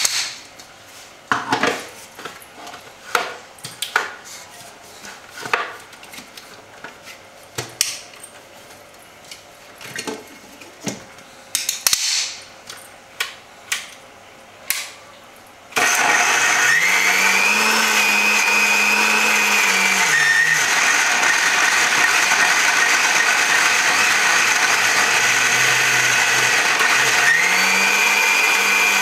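Scattered clicks and knocks as a jar and lid are handled and fitted onto an electric mixer grinder. About halfway through, the mixer grinder's motor starts and runs loud and steady, grinding a spice paste. Its pitch drops for a few seconds after the first third of the run and climbs again near the end.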